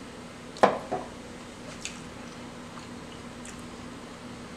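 A bite into a biscuit breakfast sandwich, with a sharp, loud crunch about half a second in and a smaller one just after. Chewing follows, with a few soft mouth clicks, over a faint steady hum.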